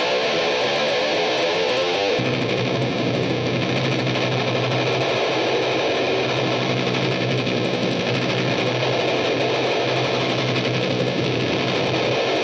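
Electric guitar played through a Death By Audio Fuzz War fuzz pedal boosted by an overdrive, into a Peavey 6505MH amp: a thick, saturated fuzz tone. Choppy playing gives way about two seconds in to a low note held and ringing out.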